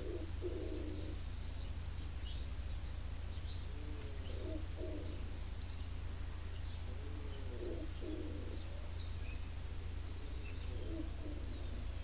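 A pigeon cooing in repeated low phrases, four times, with faint short chirps of small birds and a steady low hum underneath.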